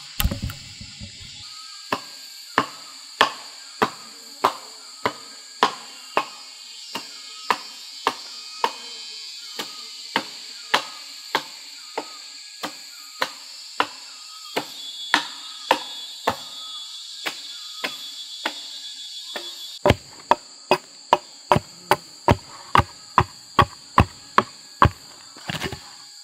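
A blade chopping into a green wooden pole, shaping its end to a point: sharp, evenly spaced strokes about one every half second, coming quicker near the end. Insects shrill steadily behind.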